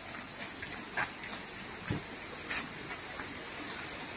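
Footsteps on a concrete bridge deck: a few irregular scuffs and taps of sandals over a steady background hiss.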